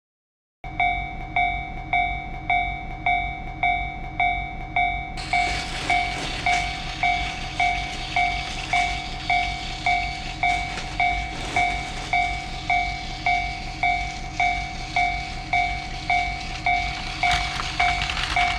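Railroad crossing warning bell ringing about twice a second with a bright, ringing tone. About five seconds in, the rumble of a passing train joins it and runs on under the bell.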